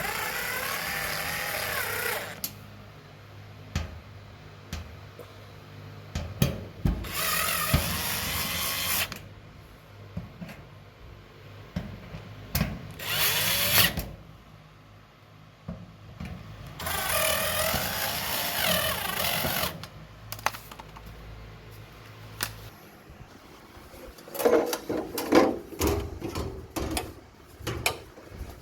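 Power drill running in four short bursts, its motor whine wavering in pitch as it drives screws into dryer panels. Several sharp clicks and knocks follow near the end.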